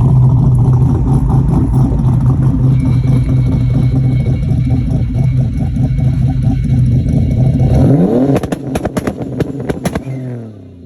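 Turbocharged Ecotec V6 drag car holding a steady engine note for several seconds, then launching. Its pitch climbs quickly with a run of sharp cracks, then falls away and fades as the car pulls off down the strip.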